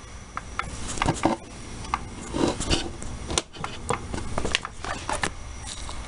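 Irregular clicks, knocks and rubbing from gloved hands handling the parts of a gas water heater's gas control and burner access at close range.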